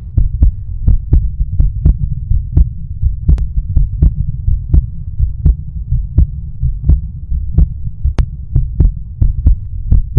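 Heartbeat sound effect: steady low thuds, about three a second, over a continuous low hum, used as a suspense cue.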